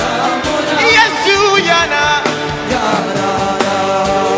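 Live gospel worship music: singers carrying a melodic chant over a band, with a steady drum beat.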